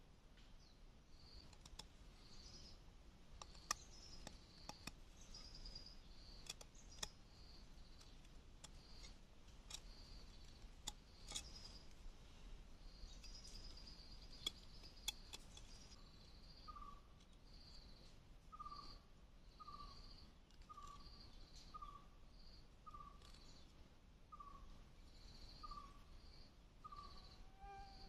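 A broad-bladed knife cutting and shaving a thin bamboo stick, heard as a few sharp clicks in the first half. Birds call through it: quick high chirps throughout, and from about halfway a lower short note repeated about once a second.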